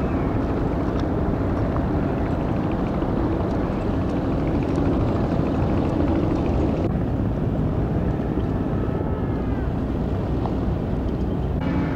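A steady, low engine rumble with a hum running through it. The texture changes abruptly about seven seconds in and again near the end.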